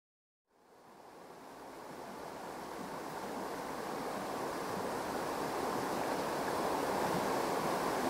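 Rushing mountain stream: a steady wash of water fading in from silence about half a second in and swelling gradually.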